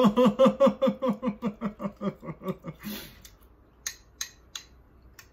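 A person laughing, a run of quick pulses fading away over about three seconds and ending in a breath out. Near the end, three light clicks of utensils against a dish.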